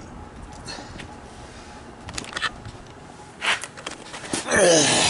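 Handling noise as the camera is moved: a few short clicks and knocks over a steady low background noise, then a man's voice near the end.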